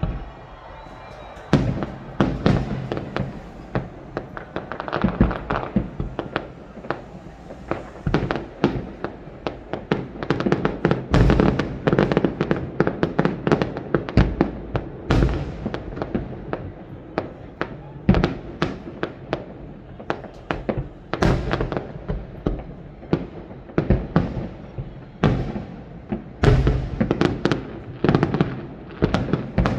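Fireworks display: shells bursting in a rapid, continuous barrage of sharp bangs and booms, several a second, with heavier clusters of louder explosions at intervals.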